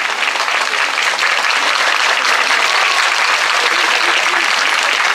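A large crowd applauding steadily with dense, even clapping.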